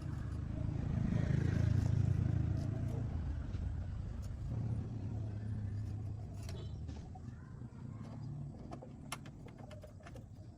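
A low engine rumble that swells about two seconds in and then slowly fades, with scattered light clicks and knocks in the second half.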